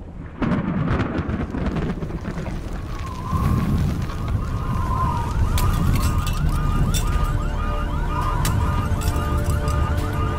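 Cyclone wind and heavy rain noise, joined about three seconds in by a wavering siren-like tone that rises and falls, and from about five seconds by a fast repeating electronic chirp over steady droning tones and sharp clicks.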